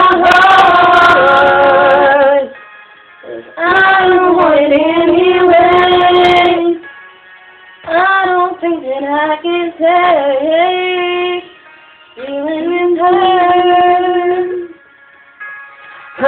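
A woman and her daughter singing together in four long phrases with short pauses between, the notes held and wavering.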